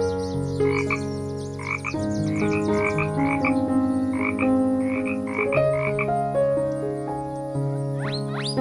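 A frog croaking in a run of short, repeated calls, about a dozen, over steady background music.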